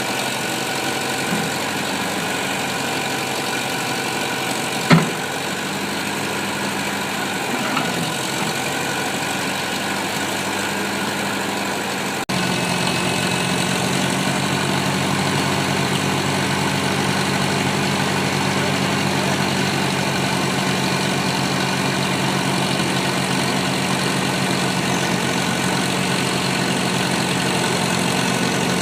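Backhoe engine idling steadily, with one sharp click about five seconds in; about twelve seconds in the sound changes abruptly and runs a little louder.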